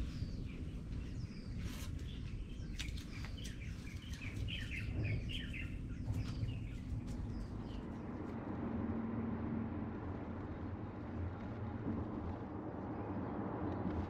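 Birds chirping over a low steady rumble, with a few sharp clicks, for the first half. About eight seconds in the chirps stop and a steady road and engine rumble takes over, heard from inside the cabin of a moving Toyota Corolla Cross.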